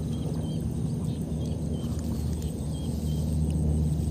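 A small engine running steadily nearby, a low drone that grows louder near the end. Faint short high chirps repeat over it.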